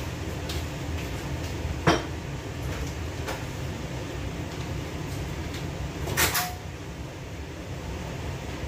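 Household kitchen knocks over a steady low hum: one sharp knock about two seconds in, and a louder clatter about six seconds in.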